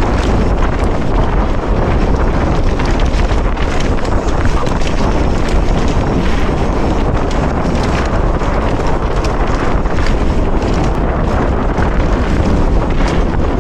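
Wind buffeting the microphone of a bike-mounted camera during a fast mountain bike descent on dirt singletrack, over a steady low rumble from the tyres and trail. Frequent sharp clicks and rattles from the bike run through it.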